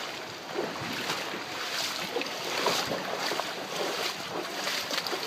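Heavy downpour falling on a flooded street: a steady hiss of rain with many small splashes and drips.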